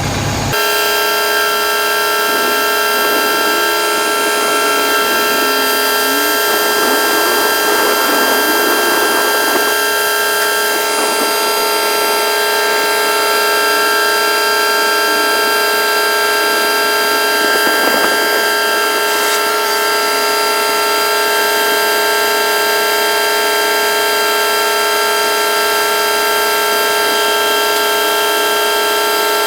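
The hydraulic system of a Zoomlion concrete pump truck running while the boom extends. It gives a steady whine of several high tones that stays level throughout.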